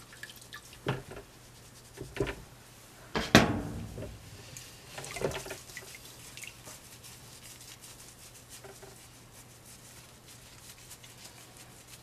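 Water splashing and dripping in a plastic tub as hands squeeze and rub a wet cloth doll's hand, with a few sharp knocks and splashes in the first five seconds, the loudest about three seconds in. After that only faint rubbing and drips.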